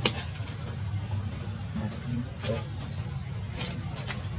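A bird calling over and over: a short high whistle that rises and then holds, about once a second. A sharp click comes right at the start, and a few fainter clicks follow.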